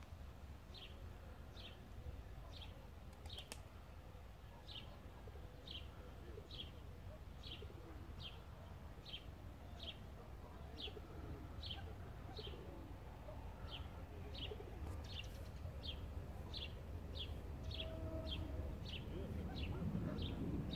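A bird calling over and over in short high chirps, about two a second at first and a little faster toward the end, over a low rumble that grows louder near the end.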